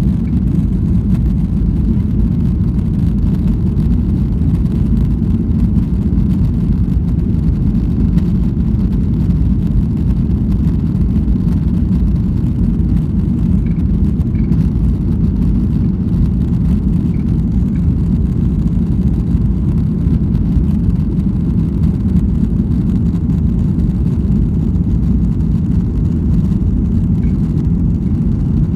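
Boeing 737-800 with its CFM56 jet engines, a steady, loud low rumble of engines and airflow that holds level without rising or falling.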